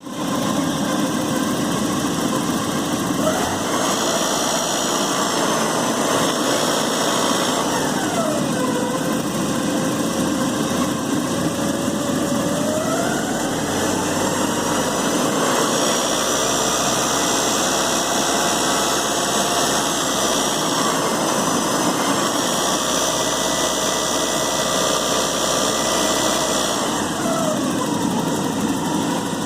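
1986 Porsche 944's 2.5-litre inline-four running with a rattle from the engine. It is revved up and held twice, the first time briefly and the second for about ten seconds, and drops back to idle after each.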